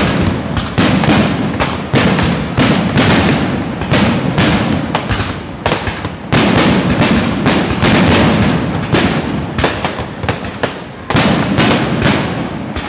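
Aerial fireworks display in full barrage: shells launching and bursting in a rapid, unbroken string of sharp bangs, several a second, each trailing off into an echo.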